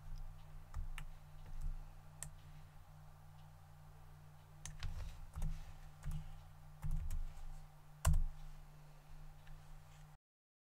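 Scattered computer keyboard and mouse clicks, a dozen or so irregular taps over a steady low hum. The sound cuts out to dead silence near the end.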